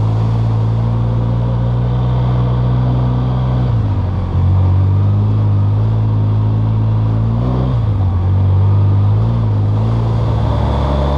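Polaris Sportsman 700 ATV engine running under way at a steady pitch. The engine note dips and comes back about four seconds in and again around eight seconds.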